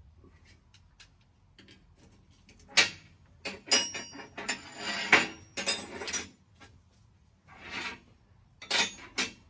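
Metal hand tools clinking and clattering as they are picked up and put away, in a run of sharp knocks and rattles starting about three seconds in.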